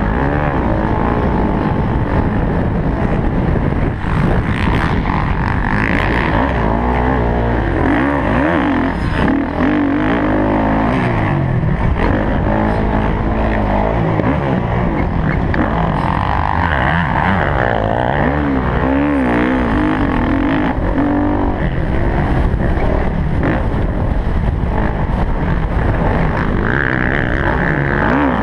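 Motocross dirt bike engine from the rider's helmet camera, revving up and falling off over and over as the rider works the throttle through turns and jumps, over heavy wind rush on the microphone.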